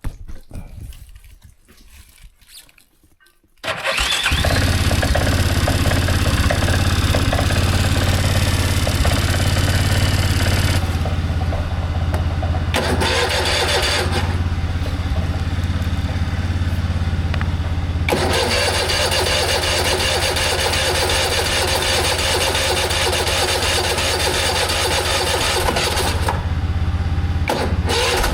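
Four-wheeler (ATV) engine starting suddenly about three and a half seconds in, then running steadily with a low hum.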